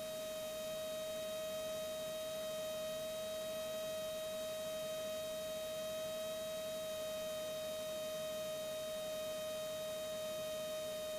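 A steady electrical whine at a single pitch with fainter overtones, heard through the airplane's intercom audio feed, unchanging throughout.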